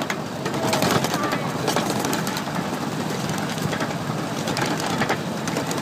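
Ride-on miniature train running along its track: a steady rumble with frequent irregular clicks and clatter of the wheels on the rails.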